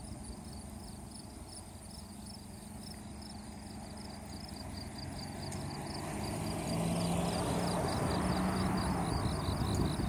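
Insects chirping in a steady, rhythmic high pulse, about five a second. From about halfway in, a vehicle on the road grows louder as it approaches.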